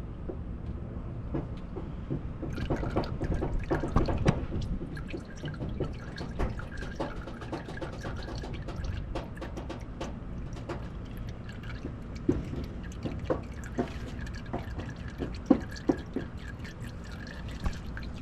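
Old, black engine oil draining out of a car's oil pan through the open drain-plug hole, a steady stream splashing and dripping into a container.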